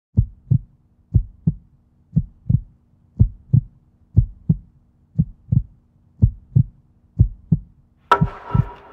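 Heartbeat sound effect: a steady lub-dub pair of low thumps about once a second over a faint low hum. Near the end a hissy layer with a few steady tones joins in.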